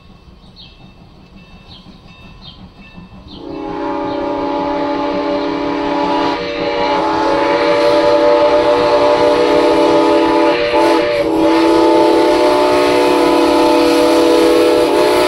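Steam whistle of Norfolk & Western No. 475, a steam locomotive, sounding a long, loud, steady chord. It starts suddenly about three and a half seconds in and holds to the end, dipping briefly twice in the middle. Before it, a few faint chirps.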